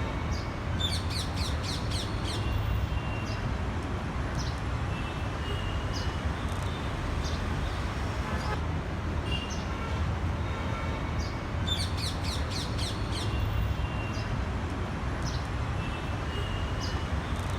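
Birds chirping and calling, with short high notes and quick runs of several notes twice, over a steady low rumble.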